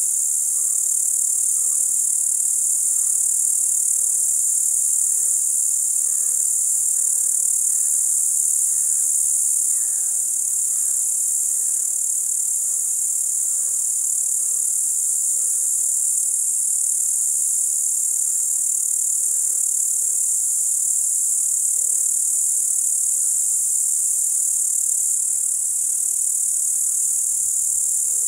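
Crickets trilling in a steady, continuous high-pitched night chorus. Faint short notes repeat in the background through roughly the first half.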